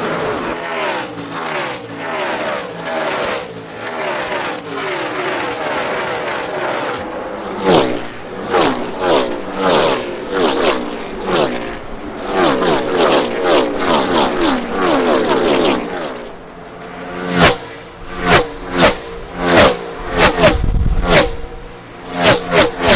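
NASCAR Cup cars' V8 engines racing past one after another, each engine note dropping in pitch as the car goes by. For the first several seconds the engines blend into one continuous sound; after that separate cars flash past, and near the end they come in a quick string.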